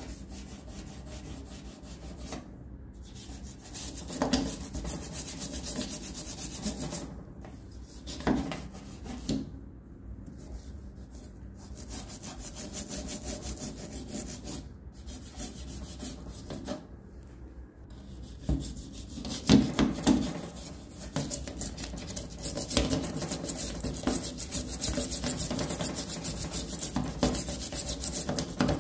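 A toothbrush scrubbing caked-on grime off a stainless-steel gas stovetop around the burner: rapid back-and-forth rubbing strokes, broken by a few short pauses. There are several louder knocks, the loudest about two-thirds of the way through.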